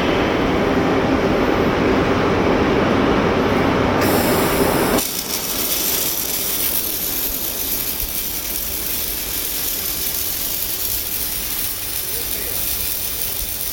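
Steady mechanical noise from a robotic welding cell, dense and loud at first, then cutting off abruptly about five seconds in to a quieter, steady hiss.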